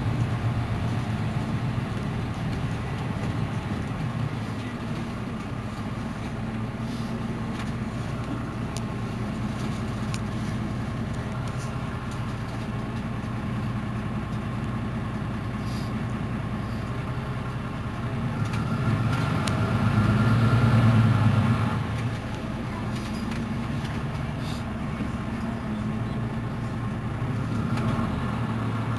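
Mercedes-Benz Citaro C2 city bus idling at a standstill with a steady low engine hum. It swells louder for a couple of seconds about twenty seconds in, then settles back to idle.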